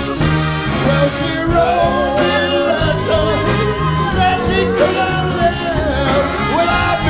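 Live band with drums, bass, guitars, keyboards and a horn section playing a soul-rock song, with a man singing the lead vocal over it.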